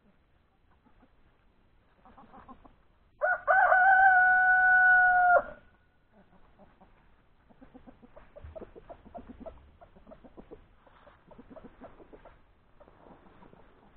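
A rooster crowing once, a short note and then a long held call of about two seconds that falls away at the end. Soft, scattered clucking of chickens follows.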